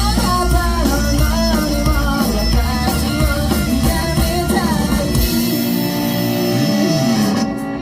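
Live rock band playing with electric guitar and drums. About five seconds in, the bass end drops out and held guitar notes carry on alone.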